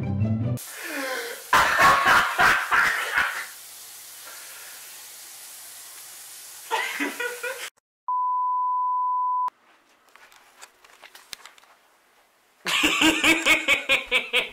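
A single steady, high beep lasting about a second and a half: the test tone that goes with TV colour bars. Before it, static hiss with voices through it; near the end, people talking.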